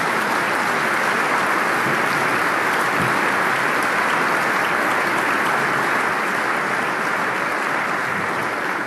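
Large audience of parliamentarians applauding steadily, a dense, even clapping that holds at one level throughout.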